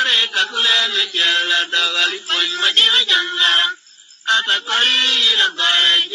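Chanted singing of a Mundari folk song, sung in short phrases with a brief break about four seconds in.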